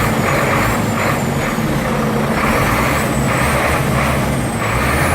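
Iveco Stralis 560's Cursor 13 straight-six diesel running on a stationary truck with a high turbo whistle that sinks and then climbs again near the end. Bursts of hiss come and go about every half second to a second over the engine.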